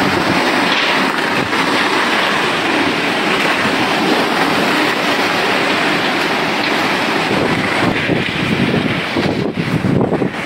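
Cyclone wind and heavy rain: a loud, steady rush of wind-driven rain with wind buffeting the microphone, turning gustier near the end.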